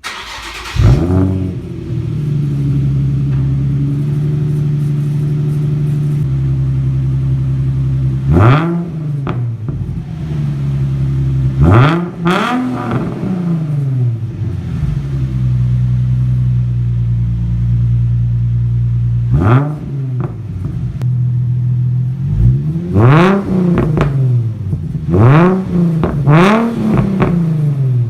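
Nissan 350Z's 3.5-litre VQ35HR V6 breathing through a Tomei titanium single-exit catback exhaust: it starts up with a rev flare, settles into a steady idle, and is blipped on the throttle, a few single revs spaced out and then several quick ones near the end.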